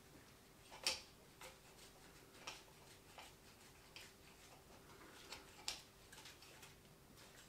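Scattered small clicks and taps as gloved hands adjust a film SLR camera on a MOZA AirCross handheld gimbal, the loudest about a second in, over a faint steady hum.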